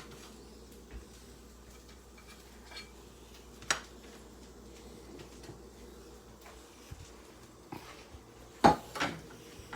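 A few scattered light knocks and clinks of kitchenware being handled, the loudest two close together near the end, over a faint steady hum.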